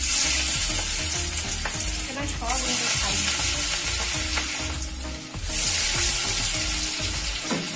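Hot mustard oil in a wok sizzling loudly as handfuls of Malabar spinach and mung dal fritter batter are dropped in to deep-fry. The hiss swells with each new fritter, three times over, and eases a little in between.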